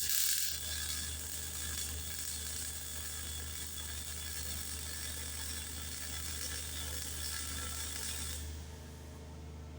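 A power tool working on steel, running steadily and then stopping about eight and a half seconds in.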